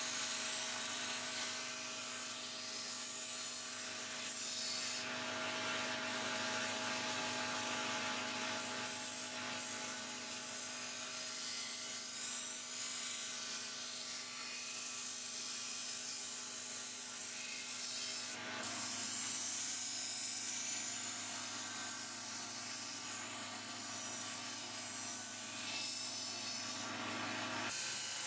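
Belt grinder running steadily as a rusty steel knife blade is held against the abrasive belt: a steady motor hum under the hiss of the belt grinding the metal. The grinding eases for a moment a little past halfway, then resumes.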